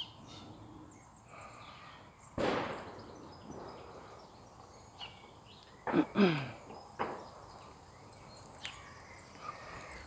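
Distant gunshots from a shooting ground: a single echoing shot about two and a half seconds in, a pair of louder sharp sounds close together about six seconds in, and a fainter crack a second later.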